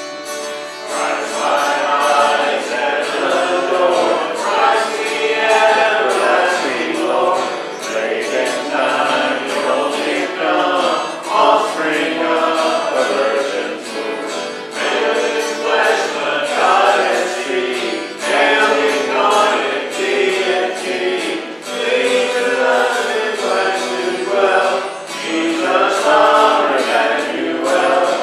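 A worship song sung by a man's and a woman's voice to acoustic guitar accompaniment, the singing coming in about a second in over the guitar.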